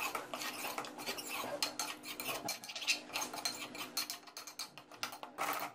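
Metal spoon scraping and clinking irregularly against a metal karahi while stirring yogurt into mutton curry.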